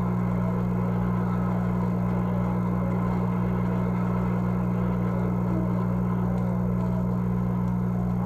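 Steady electrical hum with a light crackle and hiss above it, from the playback of an old 45 rpm record; no speech or music.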